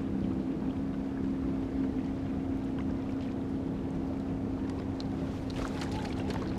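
Steady, even drone of a boat motor running on the lake. Near the end it is joined by a flurry of sharp clicks and small splashes.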